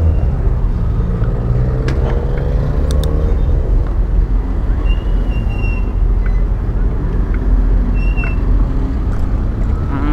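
Steady low wind rumble on the microphone of a moving bicycle, mixed with city car traffic. Brief high squeaks come about five seconds in and again near eight seconds.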